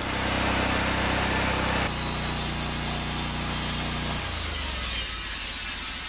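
Portable bandsaw sawmill running, its gas engine humming steadily while the band blade cuts through a log with a high sawing hiss. The engine note changes about four seconds in.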